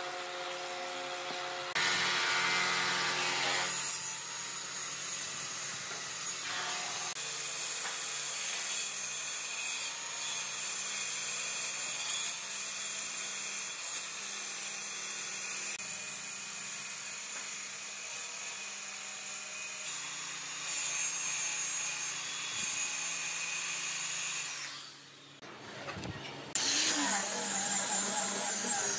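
Handheld circular saw running and cutting through a wooden panel, steady for most of the time. Near the end, after a short dip, it gives way to an angle grinder fitted with a sanding disc, sanding the panel's surface.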